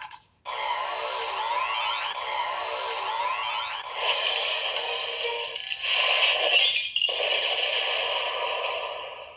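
Electronic sound effects from a Kamen Rider Zero-One DX transformation belt toy playing the Freezing Bear finishing-move sequence through its small speaker. A series of rising whooshing sweeps is followed, about four seconds in, by a stretch of crackling, noisy blasts that fades out near the end.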